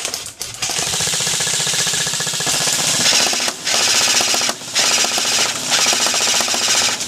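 A&K M249 SAW airsoft electric gun firing on full auto in long bursts, a fast even rattle of the gearbox cycling, with a few short breaks between bursts.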